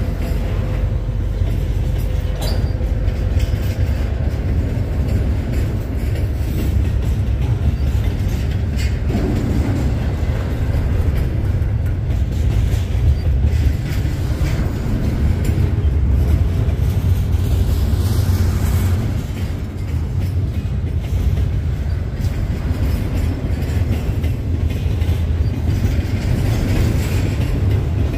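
CP double-stack intermodal freight train passing: a steady rumble of steel wheels rolling on the rails, with a few faint clicks.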